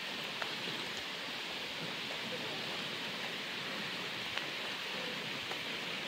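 Steady rushing of water from the waterfall and creek in the gorge: an even hiss with no breaks, and a few faint ticks over it.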